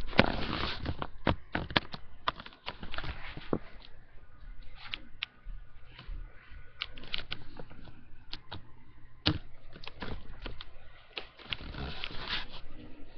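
A pet cat moving and being handled close to the webcam microphone: scattered clicks and taps with short bursts of rustling and breathy noise.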